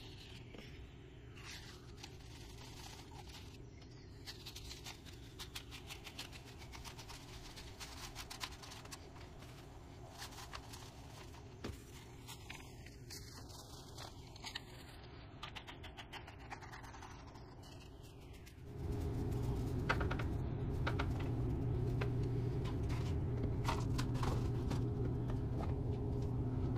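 Dry crumbled material sprinkled from a cup onto the top of a worm bin: faint rustling with many light ticks. About two-thirds of the way through, a louder steady low rumble starts, then cuts off suddenly near the end.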